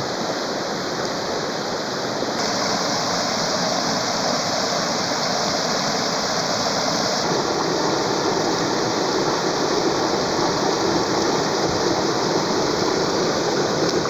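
Steady rush of running water, as from a waterfall or stream, growing a little louder and brighter about two seconds in.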